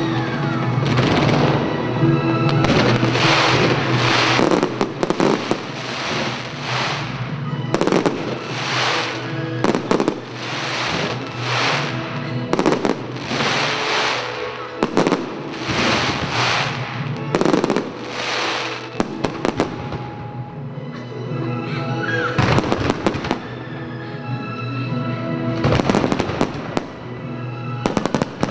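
Aerial fireworks shells bursting in quick succession, about one a second, over music. After a lull past the middle, a fresh volley starts near the end.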